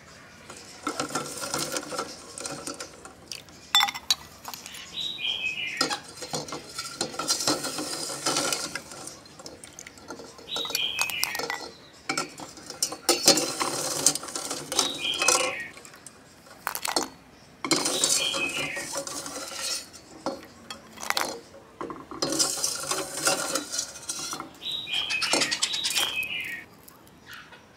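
Metal ladle scraping and clinking against a stainless steel pot while stirring and scooping quail eggs in water, in about five bouts of clatter with short pauses, some strokes ending in a short falling squeal of metal on metal.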